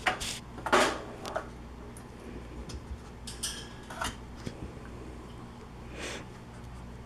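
Irregular sharp clatters and rattles from a wire pet pen and its metal floor tray, with a ping-pong ball knocking about inside, as cats and a dog paw at it through the bars. The loudest clatters come in the first second.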